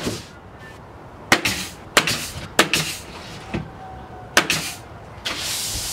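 Pneumatic floor stapler firing staples through the tongues of soft bamboo floorboards: about five sharp shots, each followed by a short hiss, then a longer hiss of air near the end.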